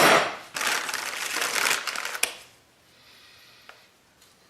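Close rustling and scraping of electrical wires being handled at the receptacle box for about two and a half seconds, then quiet apart from a single faint click near the end.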